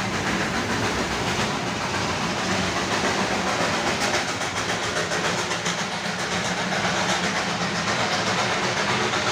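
Darjeeling Himalayan Railway narrow-gauge train running past close by, a steady rumble of its wheels on the rails.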